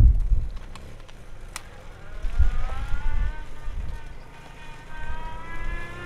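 An old car's engine pulling away and accelerating, its pitch rising, then levelling at a gear change and rising again in the next gear. Wind rumble on the microphone at the start.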